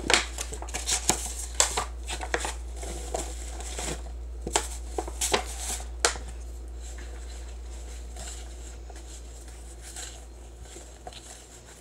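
Handling sounds of flour being mixed: crinkling of a paper flour bag, then a wire whisk clicking and scraping in a plastic tub of flour. The taps come thick at first and thin out after about six seconds, over a steady low hum.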